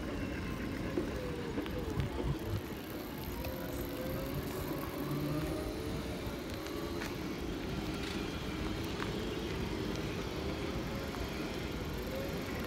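Segway motors and gearboxes whining as the riders roll along, the whine slowly rising and falling in pitch with their speed, over a steady low rumble of wind on the microphone and tyres on pavement.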